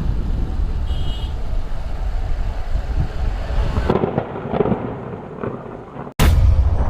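Low, steady rumble of road and wind noise from a moving vehicle. About four seconds in it thins out, and just after six seconds it breaks off for an instant and comes back louder.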